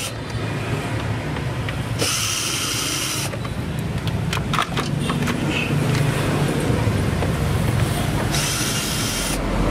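Makita cordless drill-driver running in two short bursts of about a second each, a couple of seconds in and near the end, backing out the screws of a refrigerator's rear bracket. A steady low rumble runs underneath, with a few light clicks in between.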